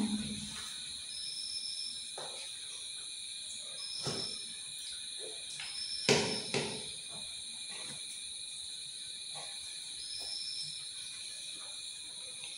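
Soft clicks and taps of people eating rice by hand from plastic plates, with a sharper knock about six seconds in. Underneath is a faint, high, steady insect trill with a short chirp every couple of seconds.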